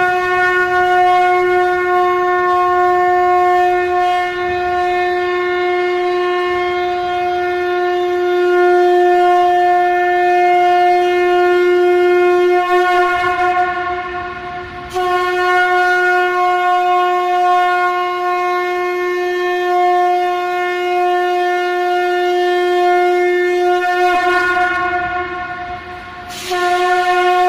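Conch shell (shankh) blown for the aarti in long held notes at one steady pitch, with a short break for breath about halfway through and another near the end.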